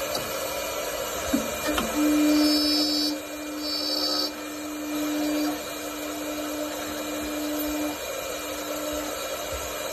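CNC wood-turning lathe running, its motor giving off a steady hum over the noise of the machine. Just after a click, the hum gets louder for a second or so, then holds before fading out near the end.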